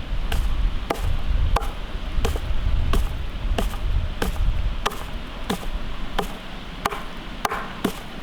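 Knife chopping on a wooden cutting board in a steady, even rhythm, about three strokes every two seconds, with lighter taps between them.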